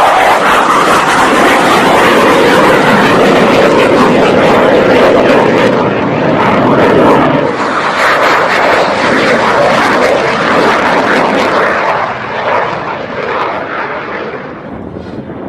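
Loud, steady fighter-jet engine noise that fades over the last few seconds as its high end drops away.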